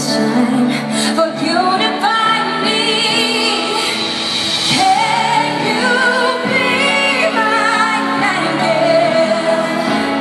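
A female pop singer singing a slow ballad live, holding long notes with vibrato over steady instrumental accompaniment.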